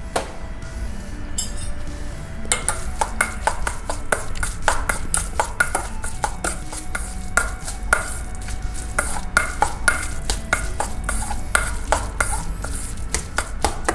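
A metal spoon stirring and folding diced raw salmon tartare in a stainless steel bowl, clinking and scraping against the bowl several times a second from about two and a half seconds in.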